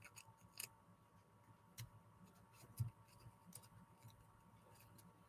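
Near silence with a few faint, brief crinkles of red crepe paper as fingers fluff and shape a fringed paper flower.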